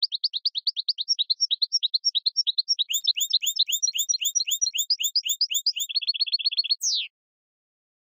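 A rapid, even series of high chirps, about eight a second. A second overlapping series joins about three seconds in, the chirps quicken near the end, and the sound finishes with one falling sweep and stops abruptly.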